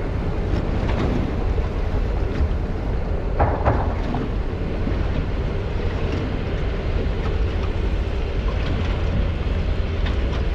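A boat under way on open water: its motor drones steadily, with wind buffeting the microphone and water rushing past the hull. A couple of short knocks come about three and a half seconds in.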